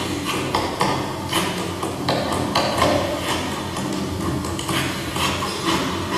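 Percussive performance soundtrack: irregular knocks, clicks and pings over a steady low drone.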